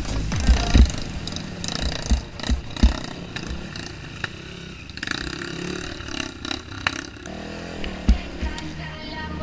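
Enduro dirt bike engine running over a rough, rutted trail, with sharp knocks and thumps as the bike jolts over bumps, several close together in the first three seconds and one more loud one about eight seconds in.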